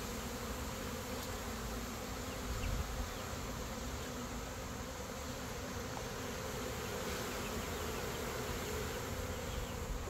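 A honey bee swarm buzzing: a steady, dense hum of thousands of bees in flight around a box they have just been shaken into.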